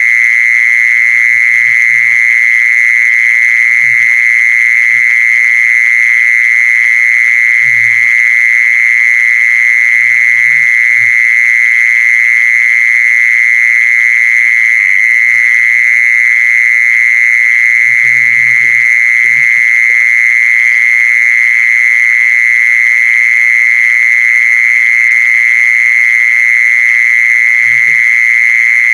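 A continuous, high-pitched pulsing trill holds one steady pitch without a break, played as a lure call to draw in a female khmol. Faint short low thuds sound now and then underneath.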